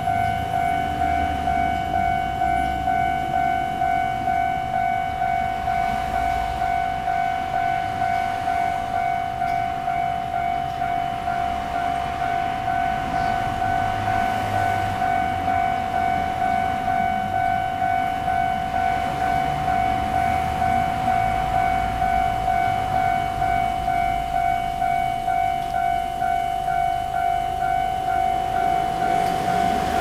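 Railway level-crossing warning bell ringing, a rapid, evenly repeated ding on one steady pitch, warning that a train is approaching.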